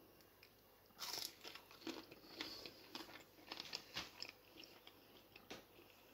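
Close-up eating sounds: a bite into a battered chicken nugget about a second in, then crunchy chewing with small irregular crackles.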